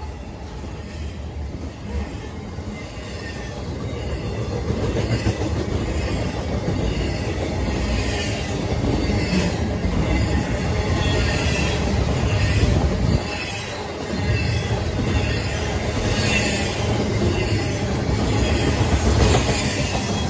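Intermodal freight cars carrying highway trailers rolling past: a steady rumble of steel wheels on rail, with a recurring clatter about once a second.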